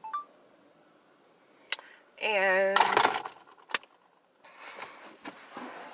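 A short beep as the phone is handled, then a brief hummed voice sound, the loudest thing heard, followed by loose rustling with small clicks and light jingling.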